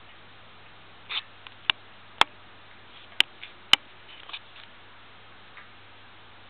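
A miniature pinscher playing roughly with a plush toy: a short scuffle, then four sharp clicks at uneven intervals, with a few softer scuffles after them.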